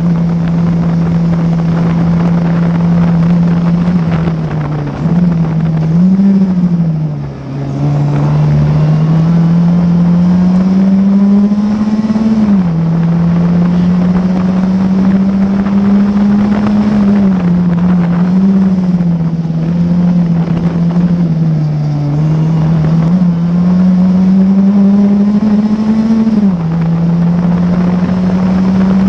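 A classic Formula Ford's 1600 cc Ford Kent four-cylinder engine racing, heard from the cockpit. Its note climbs through the revs and drops sharply at upshifts about twelve and twenty-six seconds in. Around five to seven seconds in there are quick throttle blips and a brief lift off the throttle.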